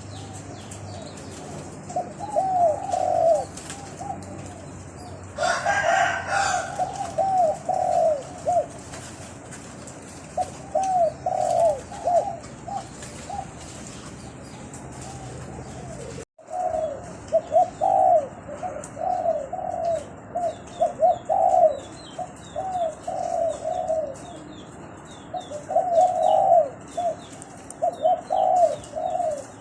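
Zebra dove cooing over and over in short phrases of rolling, arched notes, with a brief dropout just past halfway. Small birds chirp faintly in the background.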